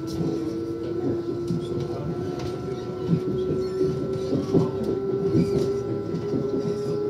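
Electric multiple-unit train (Lastochka, a Siemens Desiro RUS) heard from inside the carriage: a steady motor whine creeping slowly up in pitch as the train picks up speed, with a constant high tone over it and wheels clicking and knocking over the track.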